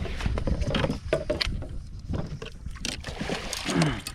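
Scattered knocks and bumps on a small fishing boat, with water noise, as a hooked largemouth bass is netted.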